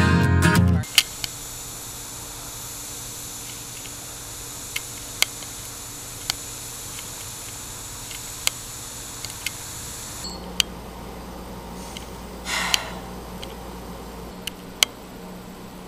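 Guitar music cuts off within the first second, leaving a camcorder's steady hiss with scattered sharp clicks. About ten seconds in, the background changes to a low indoor hum, and a brief rustle comes a couple of seconds later.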